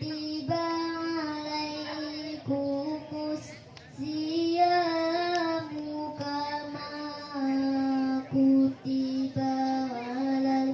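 A young girl chanting a Qur'an recitation (tilawah) into a microphone: long held, ornamented notes in melodic phrases, with brief pauses for breath between them.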